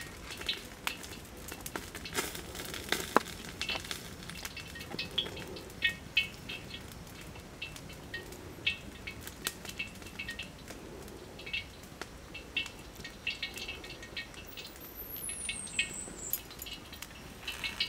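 Wet, slippery handling of skinned water snakes in a woven bamboo basket: soft rustling and scattered light clicks as the bodies are lifted and moved. Short high chirps repeat in clusters in the background.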